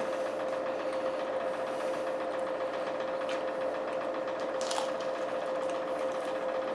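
Steady machine hum carrying one constant mid-pitched tone, with faint crunches of chewing a crisp grilled quesadilla near the middle.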